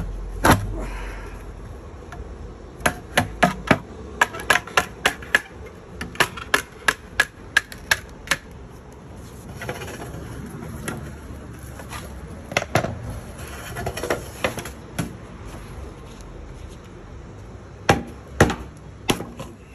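A 16-ounce claw hammer striking the back of a kitchen knife to drive it down a bamboo pole and split it. The sharp knocks come in quick runs of several strikes a second, with pauses between them and short stretches of scraping noise.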